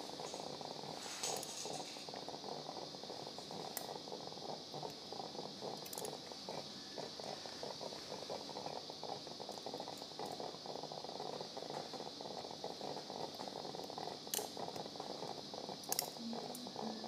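Steady operating-room background hum with a few sharp clicks of metal surgical instruments, a needle holder and thumb forceps, as an incision is sutured. The loudest click comes near the end.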